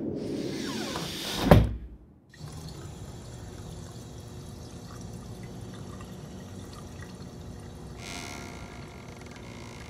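Horror-film sound effect: a rising swell of noise that builds to one sharp, loud hit about a second and a half in and cuts off abruptly. It is followed by a low steady background, with a soft hiss coming in about eight seconds in.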